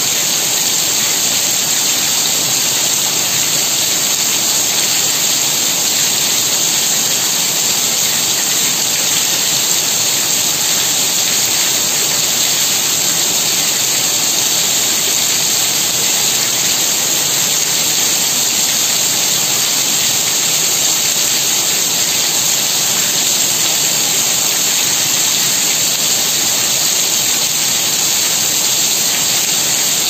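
Heavy rain pouring steadily, a dense, even hiss that holds the same level throughout.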